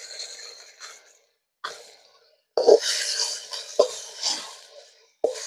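A metal ladle stirring onions and green chillies frying in oil in a large aluminium kadai: hissing scrapes broken by several sharp knocks of the ladle against the pan.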